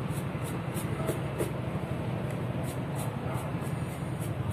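Steady low background rumble, with faint high chirps repeating about three times a second.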